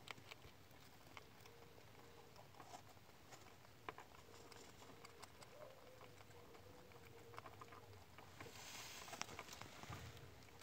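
Faint, scattered small scratches and rustles of young rabbits shifting about on cardboard and dry grass, with a short stretch of busier rustling near the end.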